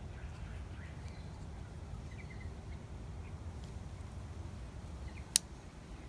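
A single sharp metallic click near the end as the scissors of a Leatherman Wave Plus multitool are unfolded into place, over a steady low background rumble with a few faint bird chirps.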